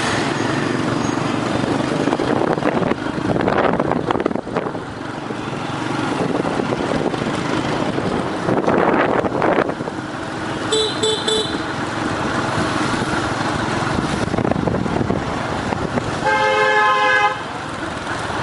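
Busy motorbike and car traffic heard from moving in the flow: a steady mix of small engines and road noise that swells as vehicles pass. Three quick horn beeps come about eleven seconds in, and a single longer horn blast of about a second comes near the end.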